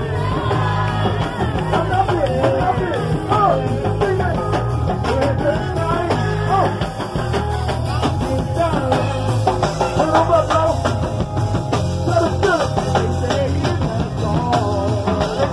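A live go-go band playing: a steady drum and bass groove with frequent drum hits, and voices singing over it.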